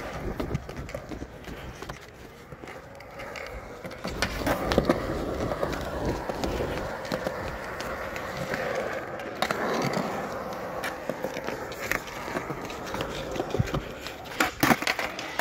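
Skateboard wheels rolling over concrete with a steady rough rumble, and a few sharp clacks of the board.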